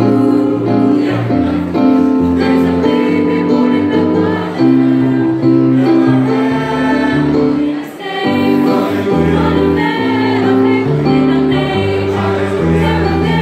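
Mixed high school choir, girls' and boys' voices together, singing in harmony, holding long chords that change every second or two, with a brief breath break about eight seconds in.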